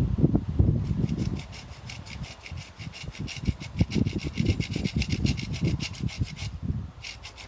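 Handsaw cutting through a thick dead tree limb, in a fast, even run of rasping strokes that pauses briefly near the end and then starts again.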